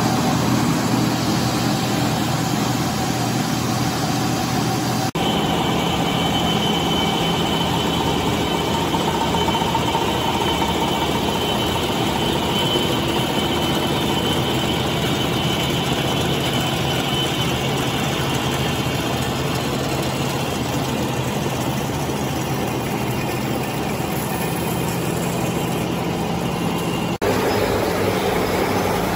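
Machinery in a welding-electrode factory running steadily: a continuous mechanical hum with a faint high whine over it. The sound changes abruptly about five seconds in and again near the end.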